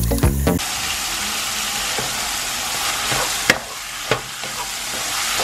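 Background music cuts off about half a second in. Then ground beef sizzles as it fries in a metal pot while a wooden spoon stirs it, with a few sharp knocks of the spoon against the pot.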